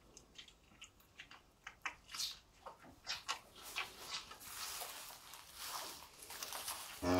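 Newborn calf suckling colostrum at a cow's teat: a run of faint wet smacking and sucking clicks, with rustling growing denser in the second half. A low moo begins at the very end.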